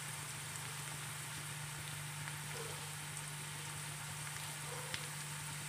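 Sliced onions sizzling steadily in hot oil in a pan, frying on their way to light brown.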